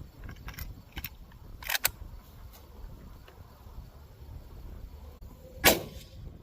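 Two quick metallic clicks from a 1949 Winchester Model 94 lever-action .30-30 rifle, then a single rifle shot near the end, the loudest sound, with a brief echo tail.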